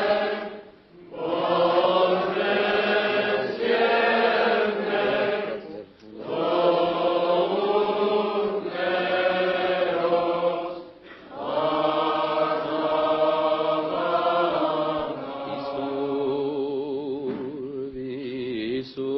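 Armenian liturgical chant sung by voices at the solemn elevation of the Armenian-rite Mass, in long held phrases with short breaks between them. Near the end the line is carried by a voice with a marked wavering vibrato.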